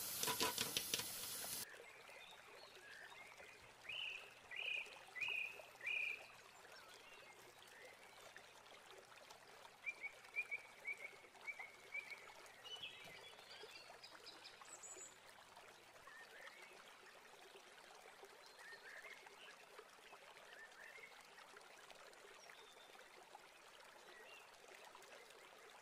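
Tap water running onto a metal mesh filter in a sink, cutting off after about a second and a half. After that come faint short chirping calls, a few at a time, over a low hiss.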